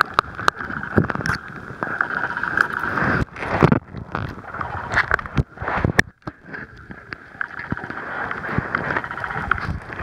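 Handling noise from an octopus gripping and rubbing its arms over a submerged Panasonic Lumix FT3 waterproof camera, heard muffled through the camera's own microphone. Irregular scrapes, clicks and knocks sit over a steady hiss, with a couple of sudden brief dropouts.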